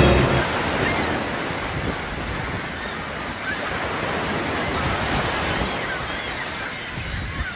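Gulf of Mexico surf washing against a fishing pier, with wind buffeting the microphone: a steady rushing noise with a few faint, short high chirps now and then. A tail of background music cuts off just after the start.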